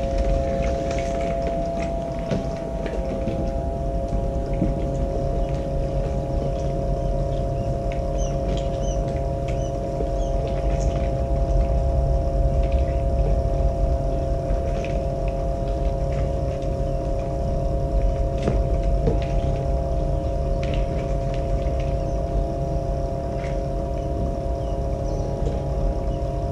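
Egg incubator's fan unit running with a steady hum and a low rumble. Faint high peeps of newly hatched quail chicks and a few small handling knocks come through over it.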